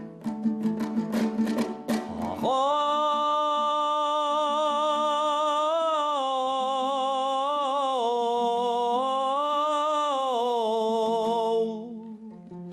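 Kazakh traditional song: a plucked string instrument strums rapidly, then a singer holds one long note, its pitch wavering up and down, for about nine seconds. The strumming returns near the end.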